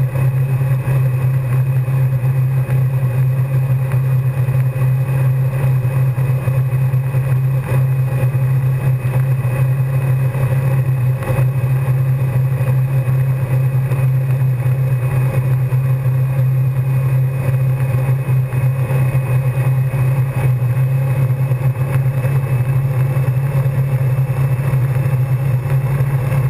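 Wakesurf boat's inboard engine running at a steady cruising speed, a constant low drone that does not change, over an even hiss of rushing water.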